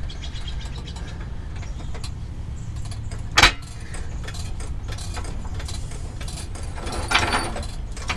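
Blue steel floor jack being shifted and set under a pickup's rear leaf spring: one sharp metallic clack about three and a half seconds in, then a cluster of light clinks near the end, over a steady low hum.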